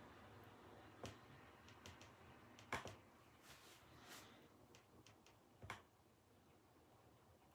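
Near silence with a few faint, scattered clicks and taps, the clearest about a second in, near the middle and just before the end.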